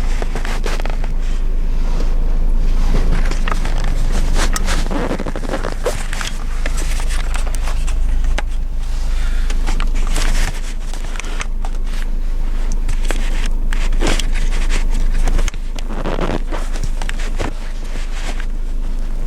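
A 1989 Honda Accord's engine running steadily at idle, overlaid by close scraping, rustling and bumping noises, with two sudden drops in level near the middle and about two-thirds of the way through.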